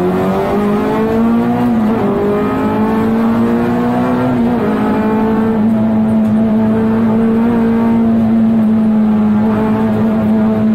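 K24 four-cylinder engine of a race-prepared 1996 Honda Integra Type R, heard from inside the cabin under hard acceleration. The revs climb, dip briefly about two seconds in and again about four and a half seconds in, then hold steady and high.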